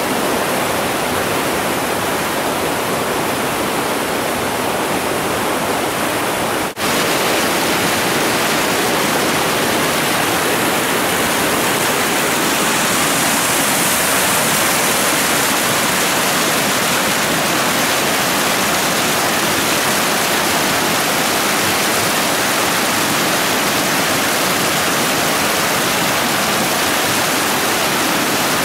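Whitewater rapids rushing steadily, a dense, loud hiss of churning river water, with a momentary dropout about seven seconds in.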